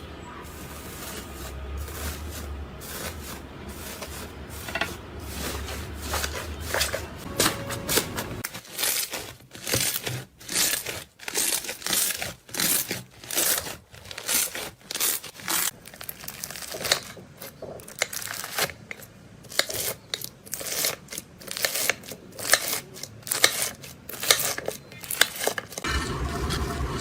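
Slime being squeezed and worked by hand, giving a continuous crinkly hiss at first and then a regular run of short, sharp sticky bursts, about one or two a second.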